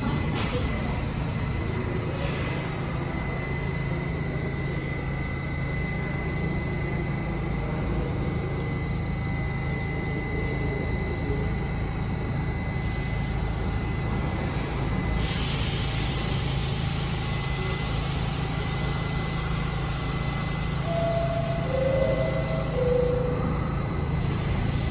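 R68A subway train standing at the platform with its equipment running: a steady low hum and a steady high whine, with a hiss growing louder about two-thirds of the way through. A few short tones sound near the end.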